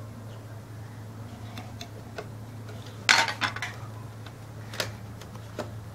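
Plastic Duplo bricks clicking and knocking together as a toddler handles and places them: a few scattered light clicks, a louder clatter about three seconds in and another knock near five seconds.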